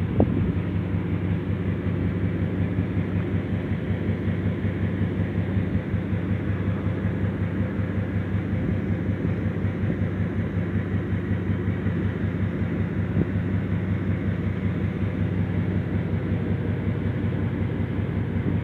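An engine running steadily at one constant speed, a low even hum, with a single knock just after the start.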